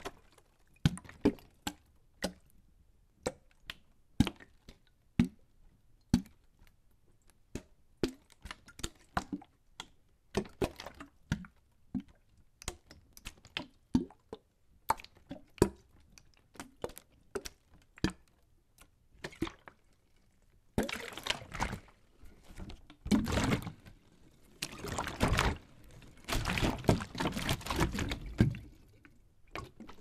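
Water sloshing inside a plastic bottle: separate short sloshes and knocks, about one or two a second, then after about twenty seconds a denser, fuller run of continuous sloshing.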